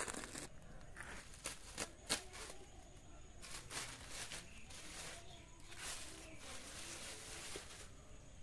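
Polythene bag crinkling and rustling as it is slit with a blade and stripped off an oyster mushroom bed whose substrate is fully colonised by mycelium, with a couple of sharp crackles about two seconds in.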